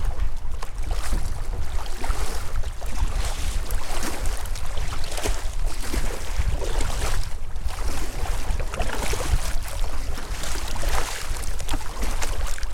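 Kayak paddle blades splashing into choppy water stroke after stroke, over a steady low rumble of strong wind buffeting the microphone.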